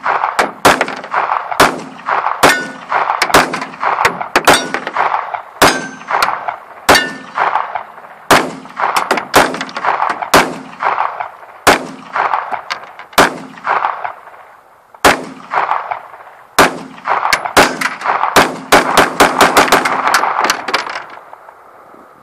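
Glock 17 and CZ 75 DB 9mm pistols firing a long string of shots with uneven spacing, roughly one or two a second. Near the end comes a rapid flurry. Each shot is followed by a short ringing echo.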